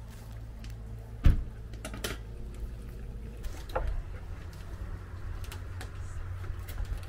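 Metal skewers and a knife being handled at a kebab stall: scattered light clicks and knocks, with one sharp knock about a second in, over a low steady hum.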